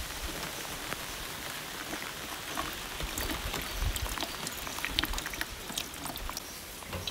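Rain falling, with many scattered drops ticking close by.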